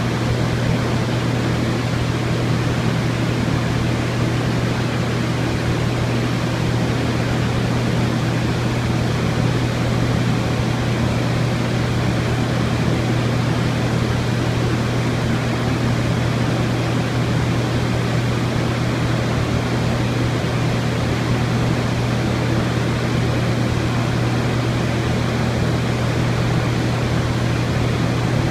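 Viking 8500 LGR dehumidifier running: a steady rush of blown air with a constant low hum.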